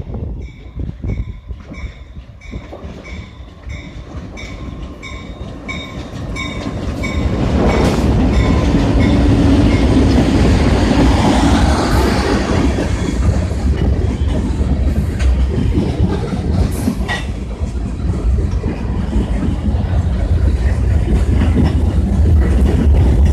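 A WNYP Railroad train approaching and passing close by: the locomotive arrives about seven seconds in, then the cars rumble and clatter steadily over the rails. In the first seconds a high ringing repeats about twice a second.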